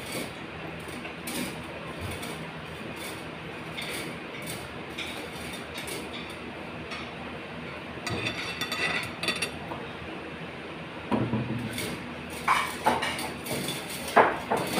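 Cutlery and dishes clinking: scattered small clicks and knocks of utensils against plates and bowls, busier about eight seconds in, with the sharpest clinks in the last few seconds.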